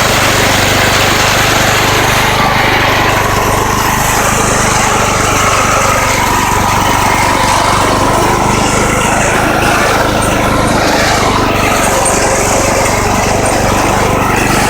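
Engine of an old MTD Yard Machines riding mower running steadily.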